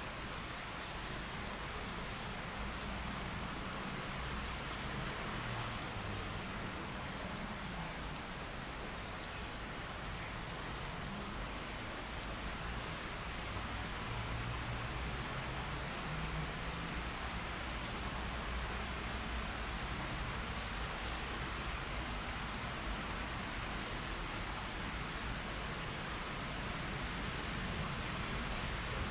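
Steady hiss of rain falling, with a faint low hum that drifts in pitch underneath; it swells slightly toward the end.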